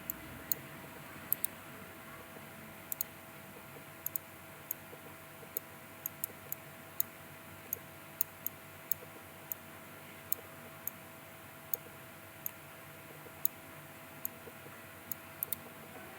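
Computer mouse clicking at an irregular pace, about one to two clicks a second and sometimes in quick double clicks, over a faint steady electrical hum.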